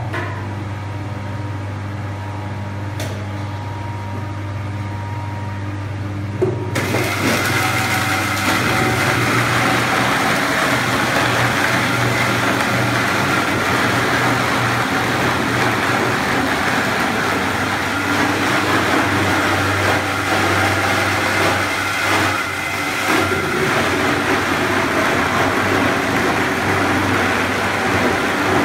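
Speidel electric onion grinder running with a steady motor hum; about seven seconds in, peeled onions go into it and the sound turns louder and rougher as they are ground to pulp, continuing steadily.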